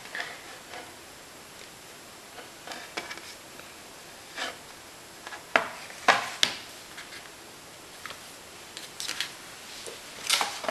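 Handling noise as a hardboard clipboard holding bracelet strings is lifted, tilted and set back down while the strings are pulled snug: soft rustles and scattered clicks, with three sharp knocks about halfway through and another cluster of knocks near the end.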